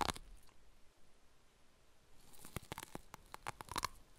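Quiet crunching and chewing: a cat eating the severed finger. The crackles come in clusters from about two seconds in.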